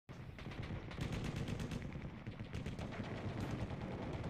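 Boeing CH-47 Chinook tandem-rotor helicopter in flight, its rotor blades beating in a rapid, steady chop over a low drone.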